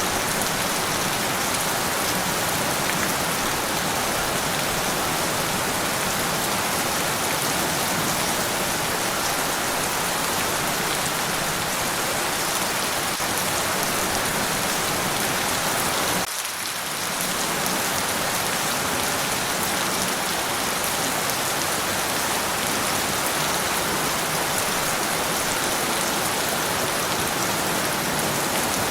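Steady rain falling, an even hiss of drops on surfaces with no thunder. The sound dips briefly for a moment a little over halfway through.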